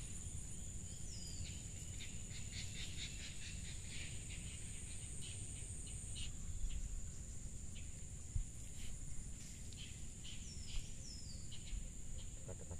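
Steady high-pitched insect drone, with a bird giving short falling chirps about a second in and again twice near the end.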